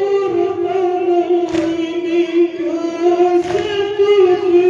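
A group of voices chanting a noha (Shia lament) in unison, holding long notes, with a sharp thump about every two seconds.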